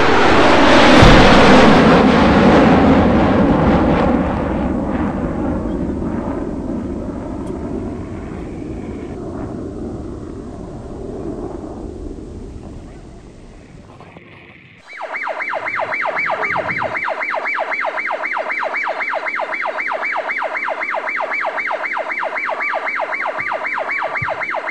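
A loud rushing noise that fades away over about fourteen seconds. After a brief gap, a toy's electronic siren starts abruptly and pulses rapidly and steadily.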